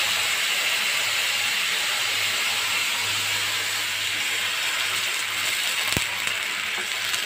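Water poured into a hot oiled pan of frying moong dal, hissing and sizzling steadily as it hits the hot pan and turns to steam. A single light click about six seconds in.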